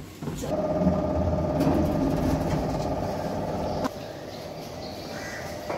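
Passenger lift travelling, heard from inside the cabin: a steady pitched hum over a low rumble that cuts off suddenly about four seconds in.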